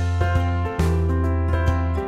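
Soft instrumental background music, with held notes changing every half second or so.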